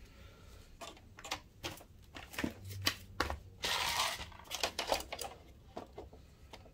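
Scattered light clicks and taps of plastic projector parts being handled with gloved hands, with a short rustle about four seconds in.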